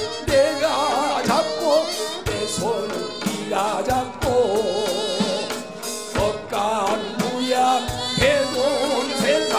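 A male voice sings a Korean folk-style tune, pansori-like, with a heavily wavering, ornamented line. Sharp percussion strikes of drum and hand gong land about once a second.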